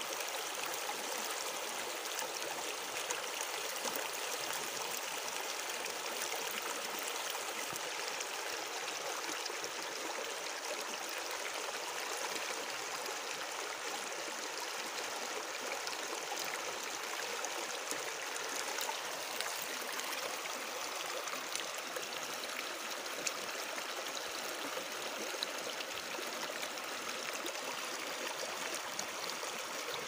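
Natural running water flowing steadily: a constant hiss with small splashes and trickles scattered through it.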